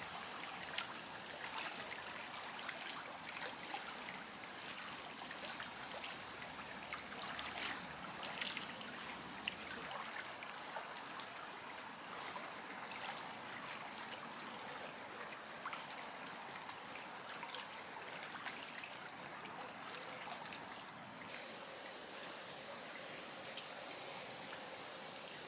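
Small waves lapping and trickling against a stony lake shore, a faint steady wash with light splashes.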